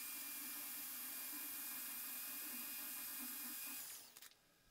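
CNC vertical mill spindle running with the engraving cutter lifted clear of the wax, a steady hiss over a faint hum. It fades away about four seconds in.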